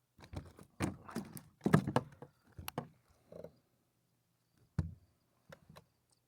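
A series of irregular knocks and thumps against the kayak as the freshly landed fish and fishing gear are handled, clustered in the first three seconds, with a sharper knock about five seconds in and a couple of lighter taps near the end.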